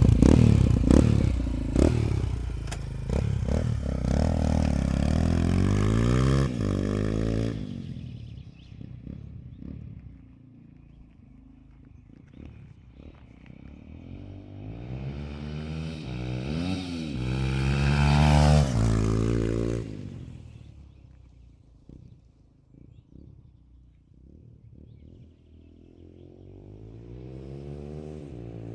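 Yamaha XT125's single-cylinder four-stroke engine on a fully open exhaust, revving hard as the bike accelerates away, its pitch climbing through the gears before it fades into the distance. About halfway through it comes back louder, rising to a peak and bending in pitch as it passes, then dies away, and near the end it approaches again.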